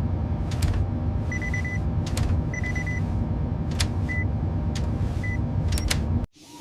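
Steady low mechanical rumble with a faint hum, crossed by sharp clicks and short electronic beeps, two longer and two brief. It all cuts off abruptly near the end.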